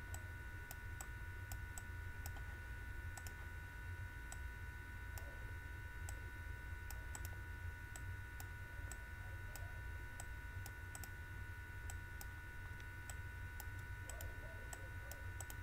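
Light, irregular clicking of computer input while lines and labels are drawn on screen, over a steady low electrical hum and a faint high whine.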